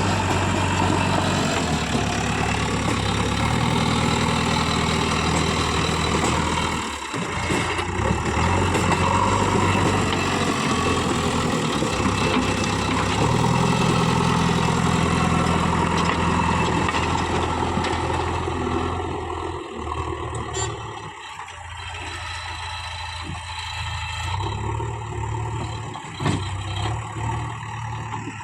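JCB 3DX backhoe loader's diesel engine running as it works, its revs rising and falling. The engine eases off and runs quieter for a few seconds near the end.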